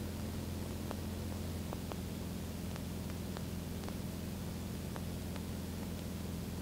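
Steady cabin drone of a 1960 Mooney M20A's four-cylinder Lycoming engine and propeller in level cruise, a low, even hum with hiss above it. A few faint clicks are scattered through it.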